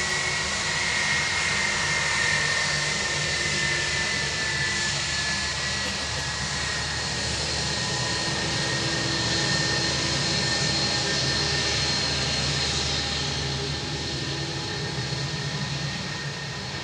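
A jet airliner's engines running, with a high whine that slowly drops in pitch over a steady roar. The sound eases off a little near the end.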